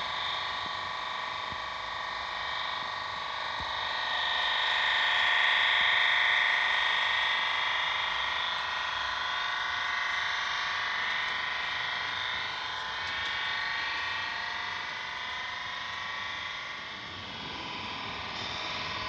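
Garden-scale model train running on the track, giving a steady high-pitched whine that swells about four to seven seconds in.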